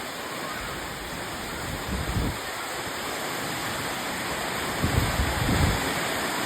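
Steady rain falling, an even hiss of heavy rainfall, with a few brief low bumps about two seconds in and again around five seconds.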